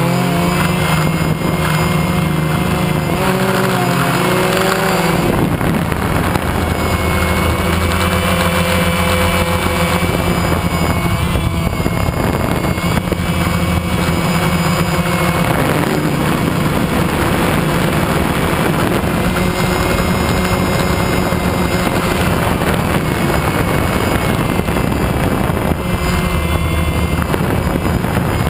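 A multirotor drone's electric motors and propellers whirring loudly and steadily, their pitch shifting up and down as the craft manoeuvres.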